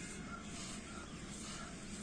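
People doing a fast rhythmic breathing drill, breathing in through the mouth and out through the nose, about two breaths a second.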